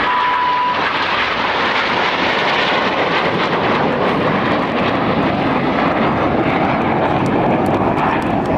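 Red Arrows' BAE Hawk T1 jets flying over, with steady, loud jet noise that holds at an even level throughout.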